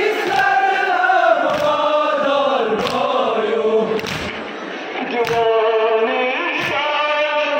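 A crowd of men chanting a Muharram noha (mourning lament) together, with sharp chest-beating strokes (matam) in time with the chant, about one stroke every 1.2 seconds.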